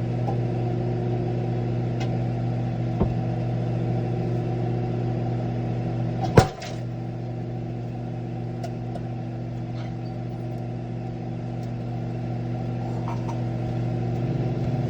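Sunbeam microwave oven running with a steady hum. About six seconds in, an egg heating inside bursts with a single sharp bang, and the oven keeps running.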